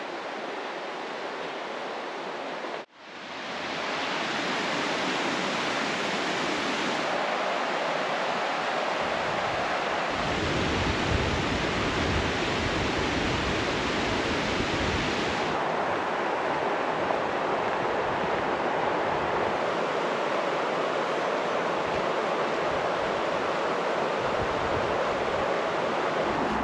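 Steady rushing outdoor noise with a sudden, brief dropout about three seconds in, after which it runs on, shifting in tone a few times.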